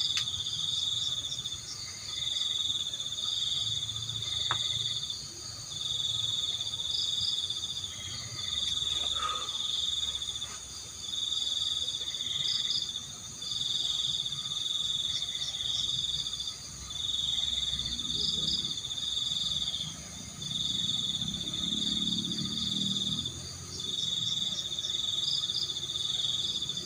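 Crickets trilling in long, high-pitched bursts that repeat about every two seconds with short breaks between, and a faint low murmur in the middle.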